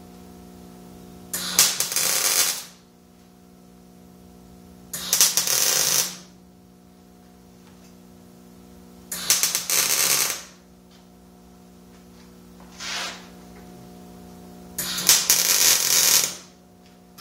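Wire-feed welder tack-welding a 16-gauge steel end cap onto a steel frame rail: four crackling arc bursts of about a second each and one shorter one, with a steady electrical hum between them.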